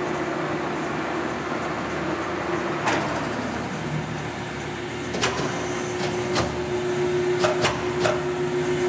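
1973 American Zip Shift heavy-duty engine lathe running with a steady hum from its headstock gearing while it is shifted from one spindle speed to the next. About three seconds in, a clunk sounds and the hum drops. A second clunk just past halfway brings the hum back, followed by several sharp clicks.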